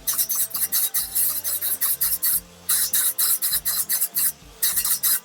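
Miter saw blade scraping into hard acacia wood in rapid short strokes, a few a second, with a couple of brief pauses.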